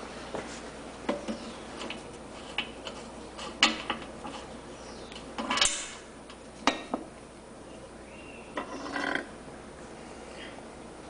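Vintage Enterprise coffee grinder being handled: scattered metallic clinks and knocks, with a short rattling clatter about halfway through and another one near the end.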